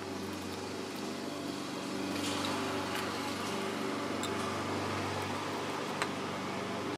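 Steady mechanical hum, like a small fan, with a few faint ticks.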